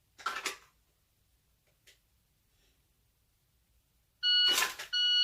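Shot timer beeps twice, about 0.7 s apart, near the end: the start signal and the par-time signal for a 0.7-second draw. A brief rustle of the pistol being drawn from the holster fills the gap between the beeps. Earlier come a short scuffing noise and a faint click.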